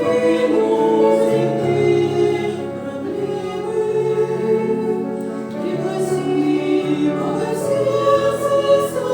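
A choir singing a Christmas hymn in several parts, with slow held notes over a steady low accompaniment.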